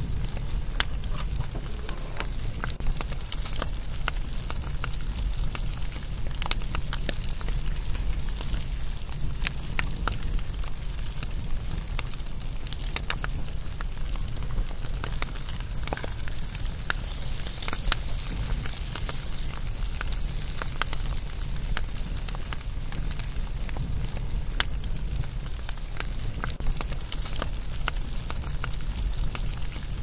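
Wood bonfire crackling: a steady low rumble with many irregular sharp pops and snaps.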